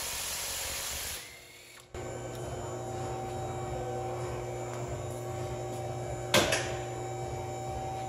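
Steady background hum with a few faint constant tones and a hiss over the first second, broken by one sharp knock about six and a half seconds in.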